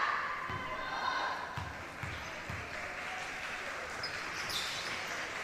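A basketball dribbled on a court, a series of short low bounces, about two a second at their quickest, over a steady background of voices and chatter. A short high squeak comes about four and a half seconds in.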